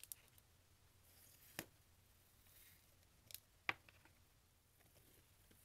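Plastic screw-top slime tub being opened and handled: a few faint, sharp plastic clicks and taps with quiet between, the loudest about three and a half seconds in.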